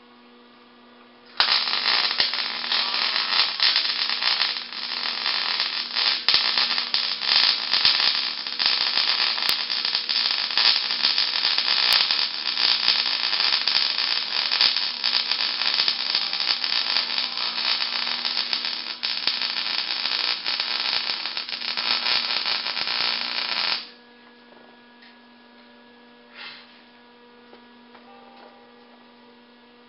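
Wire-feed arc welder crackling steadily as it lays a bead on a steel tube frame, running for about twenty seconds and stopping near the end, over a steady electrical hum.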